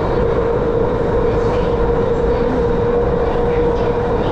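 Metro train running at steady speed, heard from inside the carriage: a continuous rumble of wheels and running noise with a steady hum throughout.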